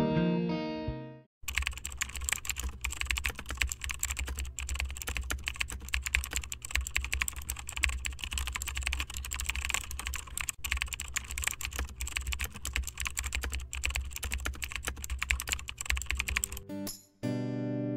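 Fast, continuous computer-keyboard typing, dense irregular key clicks over a low hum, heard as a typing sound effect while text appears. Intro music fades out in the first second or so, and guitar music comes in near the end.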